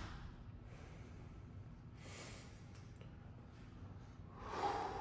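Quiet room tone with a person's soft breaths, about two and a half seconds apart, the one near the end the loudest.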